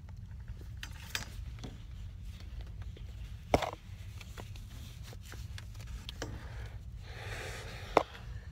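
Rustling and plastic handling noise as a half-face respirator is pulled on and its straps fitted over the head, with two sharp knocks, one about three and a half seconds in and one near the end, over a steady low rumble.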